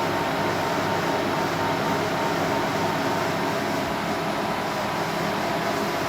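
HP server's cooling fans running steadily at speed: a continuous whir with a constant whine held throughout.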